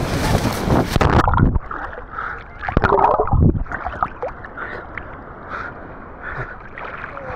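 Sea water splashing and sloshing around a camera held at the surface by a person wading in, loud at first and then muffled from about a second in as the camera dips into the water, with a heavy slosh about three seconds in.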